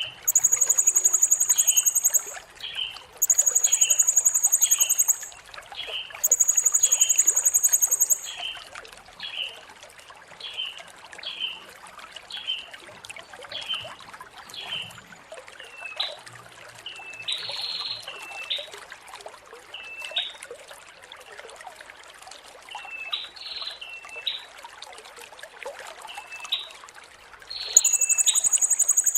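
Blue-crowned hanging parrot (serindit) singing. Long, very high, buzzing trills about two seconds each come three times in the first eight seconds and again near the end, with short chirps repeating about twice a second between them.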